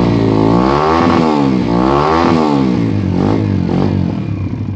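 Yamaha XTZ 125's single-cylinder four-stroke engine, fitted with a reworked head, hotter cam, larger carburettor and aftermarket exhaust, running and being revved up and down several times. It dies away right at the end.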